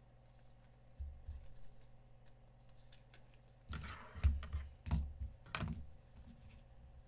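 Trading cards and foil pack wrappers being handled: soft clicks and rustles, with a louder stretch of rustling and knocks between about four and six seconds in.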